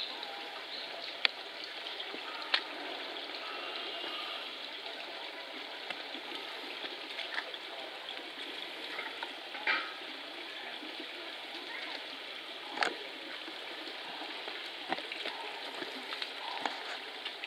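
Steady rushing noise like running water, with three sharp clicks and a softer knock about ten seconds in, and faint voices in the background.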